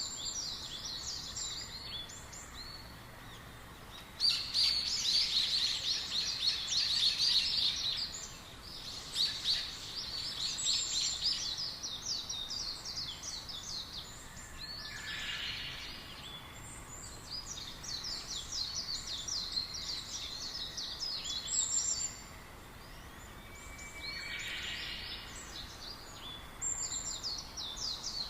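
A flock of small birds chirping together, many rapid high-pitched calls overlapping in waves that swell and die down, loudest a few seconds in and again near the end, over faint steady outdoor background noise.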